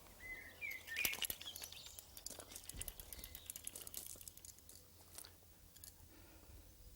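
A chalk line being stretched along a timber rafter and flicked: scattered light clicks and handling rustles, with the sharpest snap about a second in.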